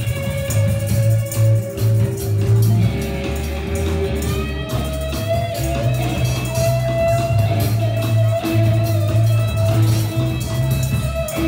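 Band music: electric guitar notes over a bass line and drums.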